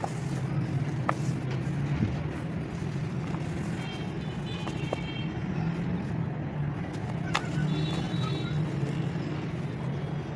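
Hands rubbing and crumbling dry red dirt and dirt lumps, a continuous gritty rustle with a few sharp ticks, over a steady low hum.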